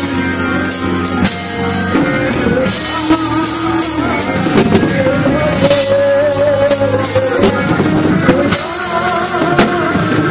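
Music with a singing voice, drums and tambourine at a steady beat.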